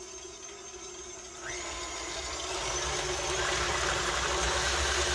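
KitchenAid Artisan stand mixer running with its flat beater in heavy whipping cream. The motor gets louder in two steps, about a second and a half in and again near three seconds, as the speed is turned up and the cream swishes around the steel bowl.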